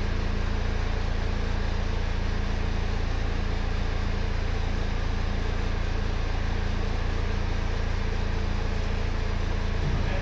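An engine idling steadily, a constant low hum with fixed low tones.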